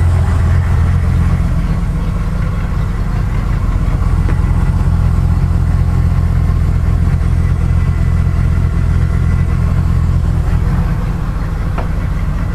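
Triumph Stag's 3.0-litre V8 idling steadily, freshly rebuilt with new timing chains and head gasket and running pretty well.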